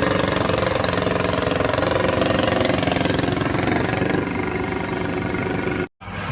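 A vehicle engine running close by with a rapid, even firing pulse. About four seconds in the sound thins out, and near the end it cuts off abruptly for a moment before a lower steady hum comes in.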